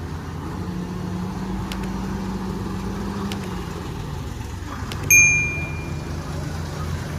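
Diesel engine of an Ajax Argo self-loading concrete mixer running steadily, its pitch rising a little and then easing back down about three to four seconds in. About five seconds in, a single sharp metal clang rings out and fades over about a second; it is the loudest sound.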